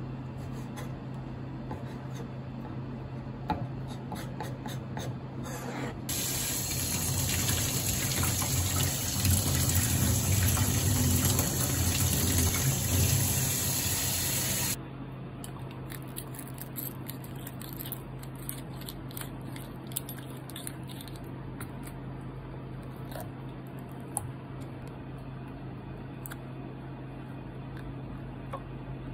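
Kitchen tap running into a stainless steel sink and splashing over a hand for about nine seconds, starting about six seconds in and cutting off sharply. Before and after it, light clicks and taps of a knife and of turban shell meat being handled on a plastic cutting board.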